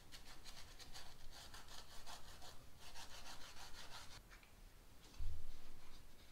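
Scotch-Brite abrasive pad scrubbing an engine's metal gasket sealing surface in quick back-and-forth strokes, cleaning it before a new gasket goes on; the scrubbing stops about four seconds in, and a low thump follows a second later.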